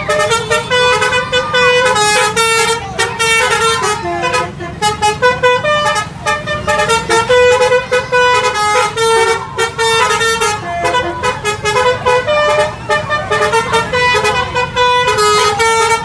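Basuri 'telolet' multi-tone musical air horn on an SGH Trans coach, playing a fast tune of short notes that step up and down one after another.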